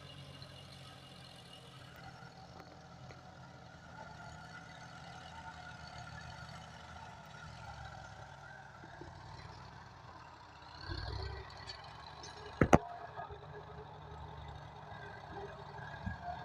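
Tractor engine running steadily at a distance, with a single sharp knock about three quarters of the way through.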